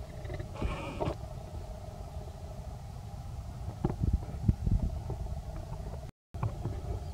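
A steady low rumble, with one short high cry from a macaque about a second in and a few soft knocks around four seconds in.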